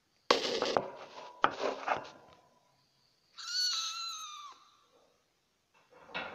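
F1 hybrid kitten (Asian leopard cat × domestic cat) giving one high-pitched cry lasting over a second, about three seconds in. Before it come two short, harsh noisy bursts, the first the loudest sound here.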